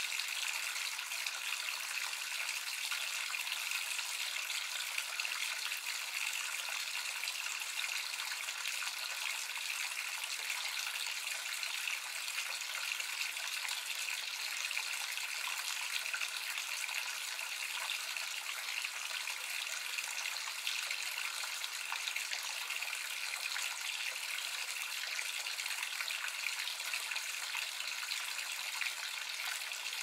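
Water running steadily from a bath tap and falling into a bathtub, an even, unchanging splash of water.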